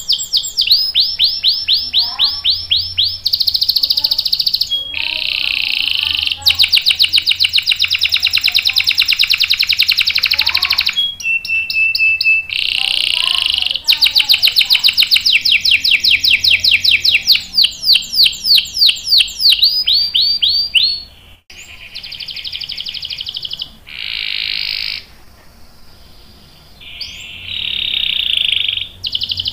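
Domestic canary singing a long song of rolls: run after run of very fast repeated notes, each run changing pitch and pattern, with short breaks between them. The song is quieter for the last several seconds.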